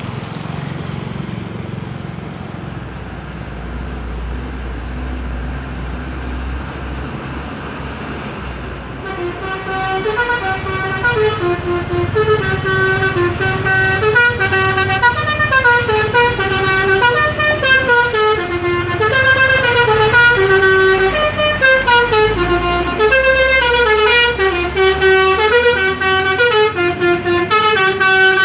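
A bus engine running, then about nine seconds in a multi-note telolet bus horn starts playing a quick melody of stepped tones over it, which keeps going and grows louder.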